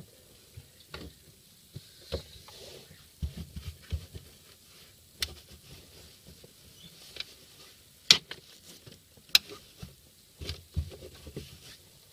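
A rag rubbing and hands handling parts against the car's sheet-metal boot floor, with scattered sharp clicks and knocks, the strongest about eight and nine seconds in.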